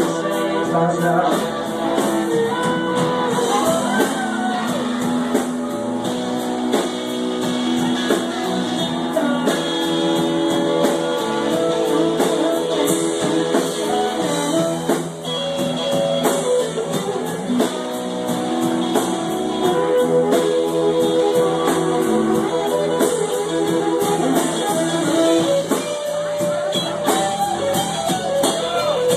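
Blues band playing: guitar over a drum kit keeping a steady beat.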